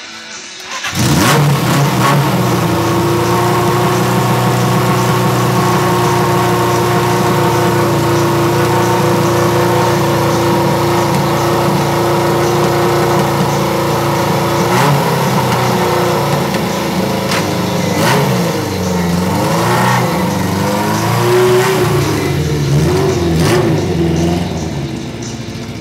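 Suzuki GS550's air-cooled inline-four engine idling steadily and evenly from about a second in. Later it revs up and down and fades as the motorcycle rides away.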